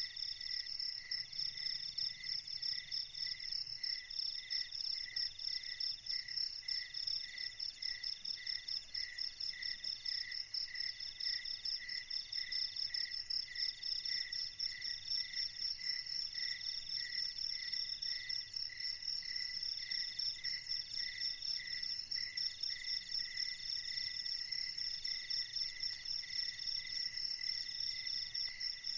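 Chorus of night insects chirping steadily: several fast-pulsing trills at different pitches overlap, one of them coming in repeated stretches about two seconds long with short breaks.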